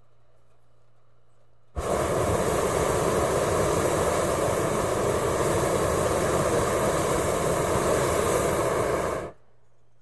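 Hot-air balloon burner firing in one long blast of about seven seconds, starting about two seconds in and cutting off abruptly. Before and after it, the pilot light gives a faint steady hiss.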